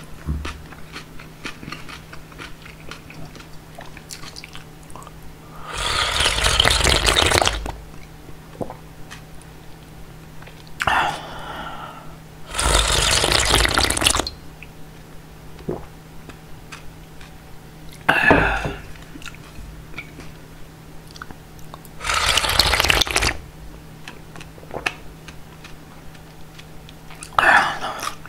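Kongguksu's cold soy-milk broth slurped from the rim of a large bowl: three long slurps of about a second and a half each, with shorter mouth sounds between them.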